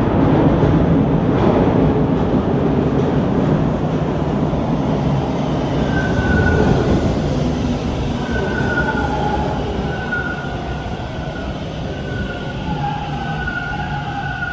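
TTC Bombardier T1 subway train moving through the station with a loud, continuous rumble. From about halfway, high steady squealing tones come and go over the rumble.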